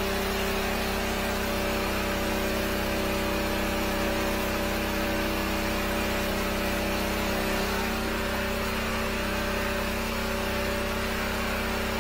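The 13-horsepower engine of a high-pressure sewer jetter runs at a steady speed, driving the pump while the jet hose clears a blocked drain line, with a steady hiss over it.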